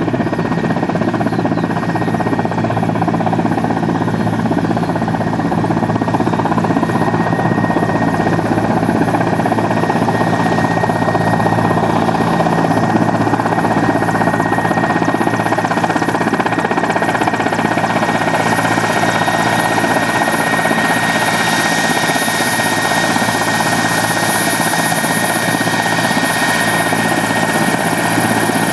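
Mil Mi-171 (Mi-8AMT) twin-turboshaft helicopters taxiing with rotors turning: a steady high turbine whine over a continuous low rotor and engine drone. The sound grows a little brighter near the end as the lead helicopter comes closer.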